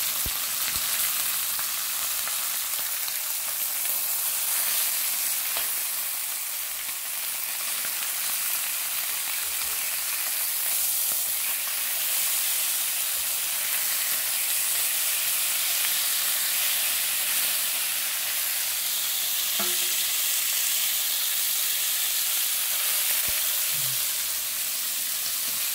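Cross-cut Korean BBQ beef short ribs sizzling steadily on the nonstick grill plate of an electric hot pot, with an occasional light click.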